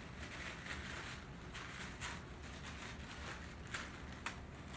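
Thin sheets of tissue paper rustling softly as they are handled and lined up in a stack, with a few brief crisp crackles.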